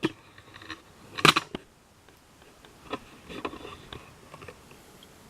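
A few light clicks and knocks from small diecast toy cars being handled and set down, the loudest about a second in.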